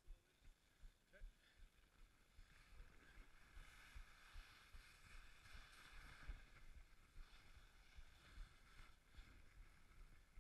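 Near silence: faint wind buffeting on the microphone, with a faint hiss that swells in the middle and fades near the end.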